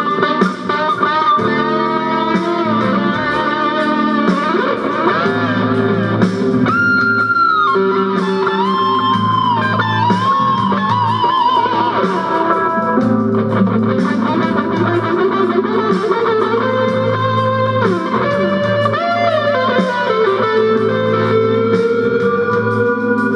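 Electric guitar played lead, with notes bent up and down in pitch and held with vibrato, over a steady low bass part.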